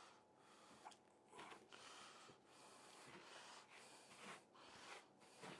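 Faint rustling and rubbing of hands pressing a dry spice mix onto a raw venison leg, the coarse spices scraping on the tray in short, irregular strokes.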